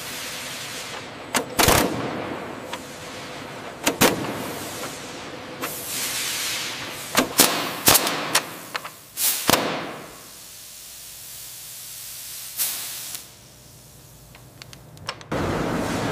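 Hot riveting on a steel receiver: a run of sharp metallic cracks and bangs, each followed by a hiss of spraying sparks. About a second before the end, a loud, steady high-pressure hiss of abrasive blasting starts suddenly.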